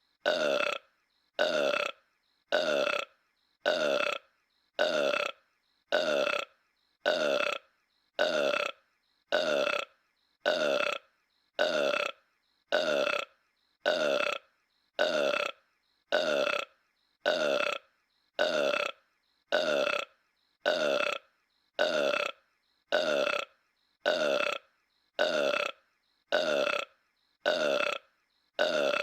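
A cartoon character's burp, the same short recorded burp looped over and over: one burp about every second, each cut off cleanly with silence between.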